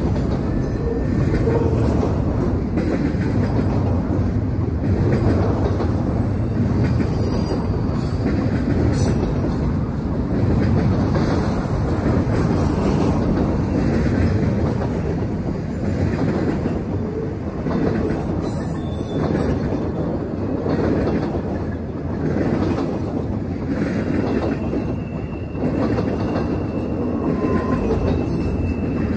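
Freight train cars rolling past: a steady rumble of steel wheels on rail with faint clicks over the rail joints. A few brief wheel squeals come through, and a thin high squeal near the end.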